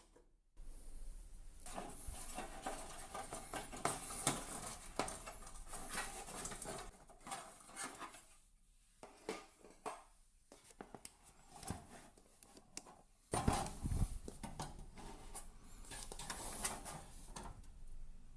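Clattering, scraping and clicking from the metal casing and plastic parts of an electric panel radiator being handled and opened up to reach its control board, with a louder knock about two-thirds of the way through.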